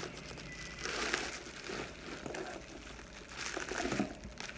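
A cardboard shipping box being handled and opened, and a bubble-wrapped package pulled out: cardboard rustling and plastic bubble wrap crinkling in irregular bursts, loudest about a second in and again near four seconds.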